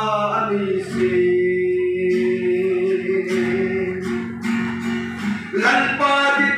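A man singing to his own strummed acoustic guitar, holding one long note through the middle before the melody moves again near the end.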